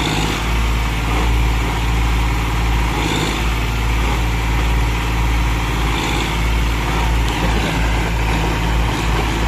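Diesel engines of a John Deere tractor hauling a fully loaded soil trailer and a JCB backhoe loader pushing it from behind, both working steadily under heavy load.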